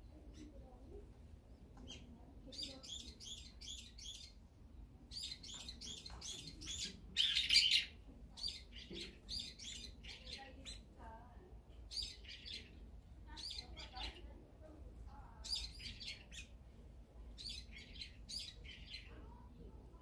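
Small songbirds chirping in runs of quick, repeated high notes spread through, with one louder, harsher call lasting about a second near the middle.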